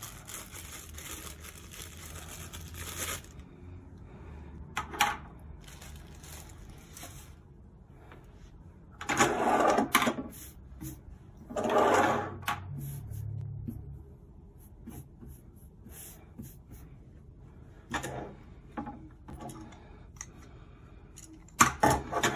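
Handling noise from unboxing a mini tripod table: a small plastic parts bag crinkling for the first few seconds, then the metal tripod parts being moved about, with two louder sliding, scraping sounds about a second long and a few sharp knocks as pieces are set down on the wooden table.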